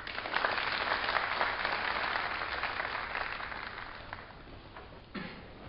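An audience applauding, the clapping starting at once and dying away over about four seconds.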